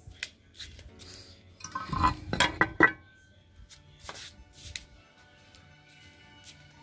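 Newly wired electric disc horns giving a few very short blips about two to three seconds in, with sharp clicks from the connections being touched: a first test of the horn circuit. Faint steady music continues after the blips.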